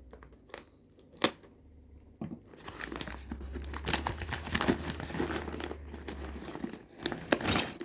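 Packaging crinkling and tearing as a bag of key blanks is opened, with a sharp click about a second in and the loudest rustle near the end.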